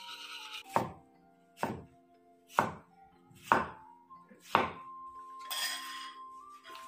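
Cleaver chopping cucumber on a wooden cutting board: five strokes about a second apart, over background music. Near the end comes a short rustle as the slices go into a bowl.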